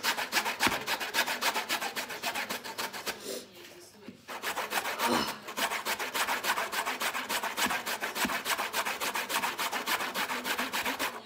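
Horseradish root rasped up and down a metal box grater in quick, even strokes, about five a second, with a pause of about a second around three seconds in.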